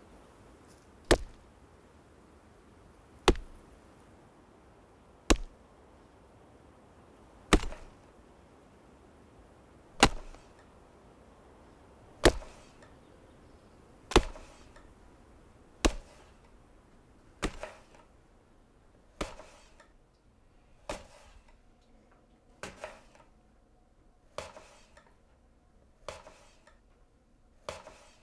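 Axe chopping wood: a steady series of single sharp cracks, about one every two seconds. In the second half the knocks come a little faster and sound thinner, with a short ring after each, and one double knock.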